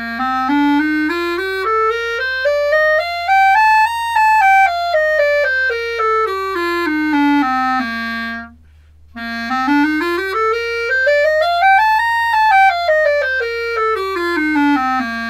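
Clarinet played with its leather ligature at normal, moderate tightness, giving the full reference tone. It plays a scale up about two octaves and back down, twice, with a short breath between the runs.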